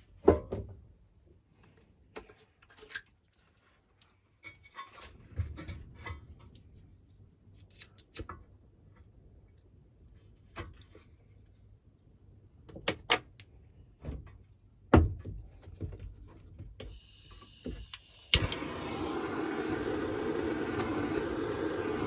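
Scattered knocks and clicks of a lawnmower's recoil starter parts being handled and fitted by hand. About eighteen seconds in, a sharp click is followed by a steady hum that runs on.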